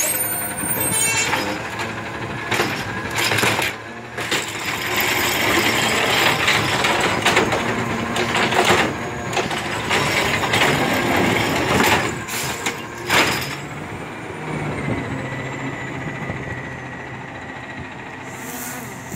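Natural-gas-powered automated side-loader garbage truck running while its hydraulic arm lifts a wheeled trash cart and tips it into the hopper: repeated knocks and clatter as the cart is shaken and banged against the truck, over the steady engine drone. In the last few seconds the clatter stops and the truck's drone carries on more quietly as it pulls away.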